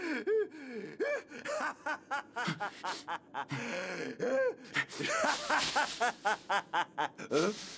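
A man laughing loudly in a long run of short, rhythmic "ha" bursts, with a short pause near the middle.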